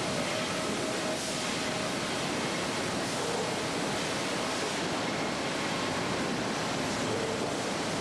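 Steady, dense noise of sawmill machinery running, with conveyors and chain transfers moving boards. A faint steady hum fades out about a second in.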